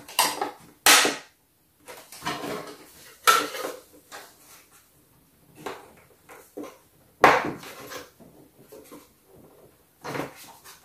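Plastic clicks and knocks as small plastic window frames are pushed and pressed into the plastic wall of a toy dollhouse, in irregular bursts with the sharpest snaps about one second in and about seven seconds in.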